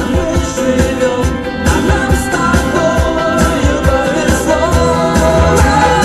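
Pop song with singing and a steady bass beat, playing loudly through a truck cab's audio system whose speaker wiring is being repaired and tested.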